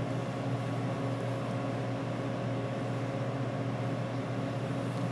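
Steady low hum with an even hiss behind it: indoor room tone.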